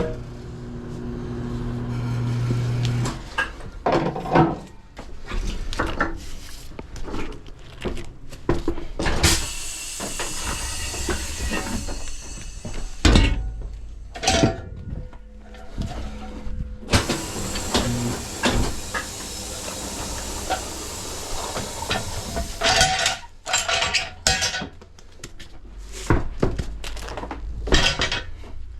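Tire-shop work at a tire changer: a motor hums steadily for about three seconds, compressed air hisses in two long spells, and metal tools and the wheel clank and knock between them.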